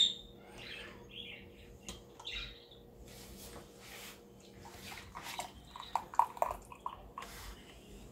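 Plastic ladle and canning funnel knocking against small glass canning jars while hot jelly is ladled in and poured, with a sharp ringing glass clink at the start and a cluster of knocks about six seconds in.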